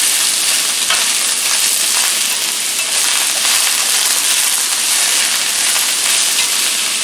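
Summer squash strips frying in hot olive oil in a pan, a steady loud sizzle.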